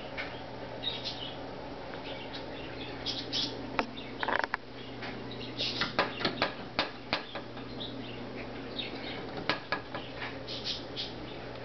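A pet bird working at a door knob with its beak: a scattered string of sharp clicks and taps, with short high chirps and a brief scuffling burst about four seconds in.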